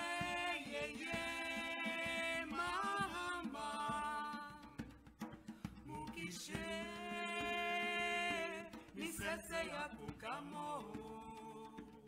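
A woman singing a chant in long held notes that bend and slide between pitches: one long phrase at the start, a second long phrase beginning about six seconds in, and shorter rising and falling notes near the end.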